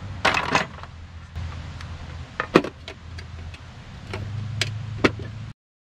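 Metal hand tools and a metal toolbox clinking and rattling as tools are put away: a handful of sharp clinks, spread apart, over a low hum. The sound cuts off about five and a half seconds in.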